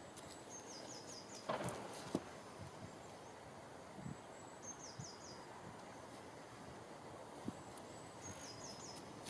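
Faint outdoor background with a small bird calling three times, each a quick run of four or five high, stepping notes. A couple of dull knocks come in the first few seconds.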